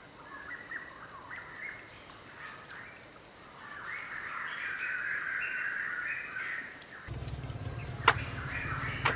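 Wild birds chirping and calling in the background. About seven seconds in, a low steady rumble starts, and near the end there are two sharp clicks about a second apart.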